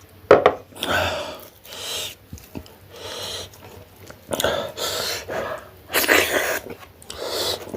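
A person's quick, hissing breaths and sniffs through the mouth and nose, about one a second with a sharp one near the start, the kind of breathing that comes from eating fiery dalle chilli.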